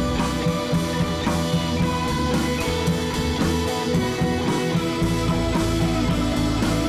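Rock music with electric guitar and a drum kit keeping a steady beat.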